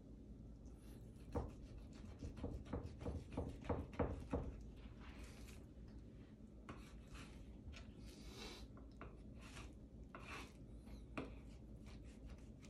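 Knife trimming the edge off a raw brisket on a wooden cutting board: a run of soft knocks as the blade and meat meet the board, then quieter scraping and rubbing as the cut goes on.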